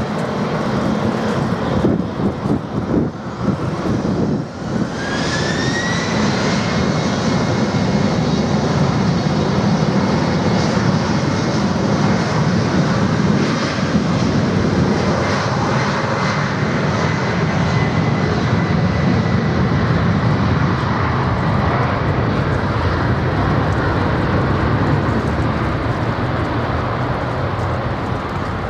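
An Embraer E-Jet airliner's twin turbofan engines spooling up to takeoff power, a whine rising about five seconds in and then holding steady, over a heavy rumble through the takeoff roll.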